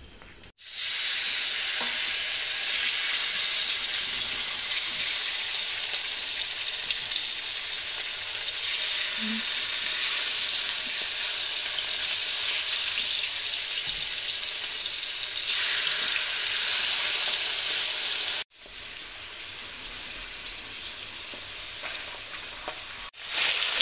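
Thin lamb slices sizzling in hot vegetable oil in a steel wok while being turned with a wooden spatula. The sizzle breaks off sharply about eighteen seconds in and comes back quieter.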